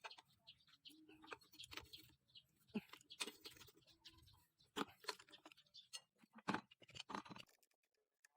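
Scattered light clicks and taps of tools and engine parts being handled, stopping about seven and a half seconds in.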